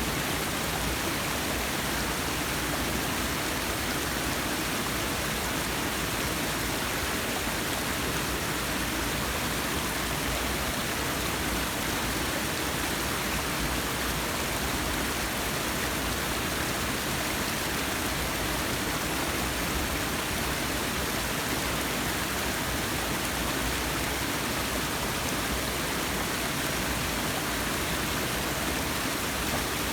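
Forest waterfall: water falling and splashing in a steady, unbroken rush.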